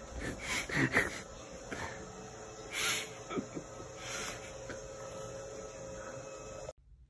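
A cat swatting at a hanging curtain: a few short, breathy swishes and scuffs over a steady hum, cut off abruptly near the end.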